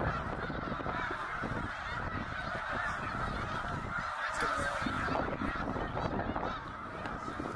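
Large flock of snow geese calling together: a dense, continuous chorus of overlapping honks with no single call standing out.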